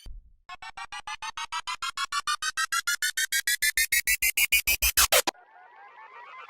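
Synthesized build-up sound effect: a fast string of short electronic beeps that climbs steadily in pitch and gets louder, then cuts off suddenly about five seconds in. A faint, wavering rising tone follows near the end.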